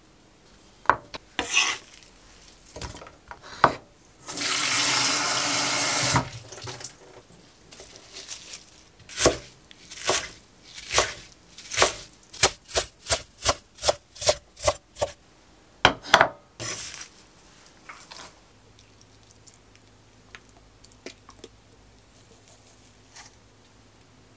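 A kitchen tap runs for about two seconds. Then a kitchen knife chops Asian chives on an end-grain wooden cutting board in a run of sharp chops, about two a second, with a few single knocks before and after.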